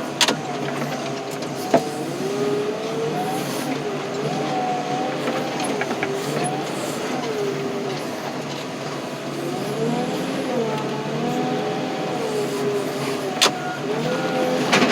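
Tractor engine running under load, its pitch rising and falling as the fork works, with a few sharp knocks: one at the start, one about two seconds in and one near the end.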